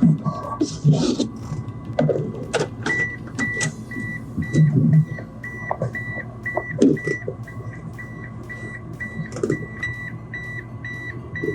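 A car's warning chime beeps steadily at about three short beeps a second, starting about three seconds in. The 2nd-generation Mitsubishi Eclipse's door-open or key-in-ignition chime fits, as someone gets into the car. Scattered clicks and knocks of handling inside the car run alongside.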